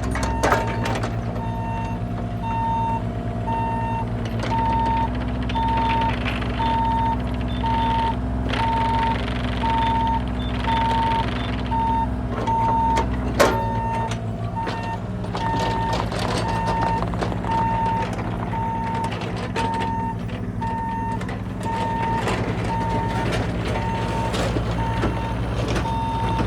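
Bobcat E35i mini excavator working, its Kubota diesel running under hydraulic load and changing pitch a few times, while its warning alarm beeps steadily about one and a half times a second. Scattered metal clanks, with one sharp knock about 13 seconds in.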